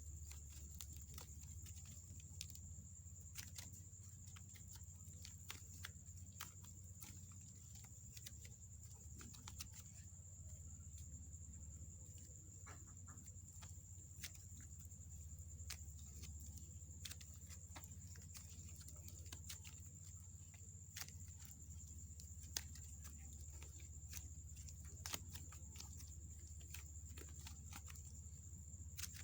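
Faint, irregular sticky clicks and pops of clay slime being handled and kneaded, over a steady low electrical hum and a thin high whine.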